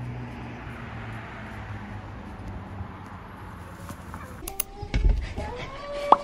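Steady outdoor background hum with a low rumble. Near the end, after a bump, a Shetland sheepdog gives short high whines, begging for food.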